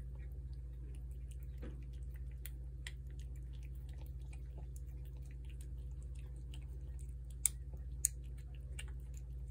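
A cat chewing and smacking on shredded wet food, a quick irregular run of small wet clicks, with two sharper clicks near the end. A steady low hum runs underneath.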